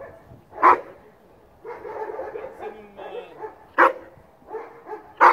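Czechoslovakian Wolfdog giving three sharp, loud barks, a second or three apart, with quieter wavering whining between them.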